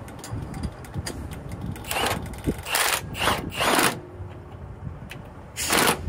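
Milwaukee M18 cordless 1/2-inch impact wrench fired in about five short bursts, snugging a torsion bar bolt on a semi truck.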